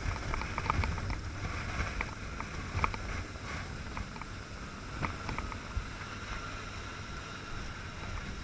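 Helicopter hovering low overhead during a litter hoist at sea: a steady rumble of rotor and engine noise, with rotor downwash buffeting the microphone and scattered short clicks.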